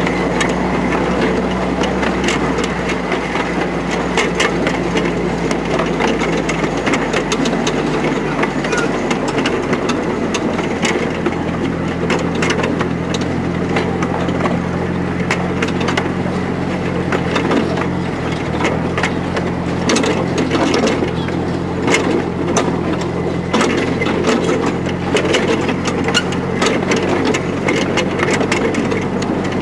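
A 15-inch gauge miniature train heard from on board its carriages as it runs along the track: a steady rattle of wheels and carriages, with a constant low hum underneath. Sharp clicks and knocks from the running gear come thicker in the second half.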